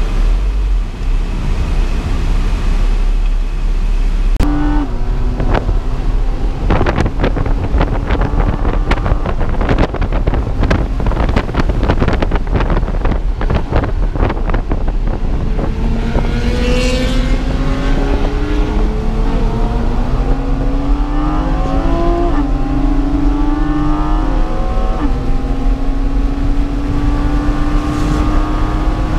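Porsche Cayman engine accelerating hard, heard from inside the cabin over a heavy rumble of wind and road noise. Many clicks and knocks come in the first half. From about halfway the engine note climbs and drops back several times as it shifts up through the gears.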